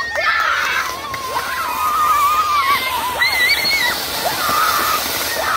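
Ground fountain firework spraying sparks with a loud, steady hiss, while children shriek and shout over it.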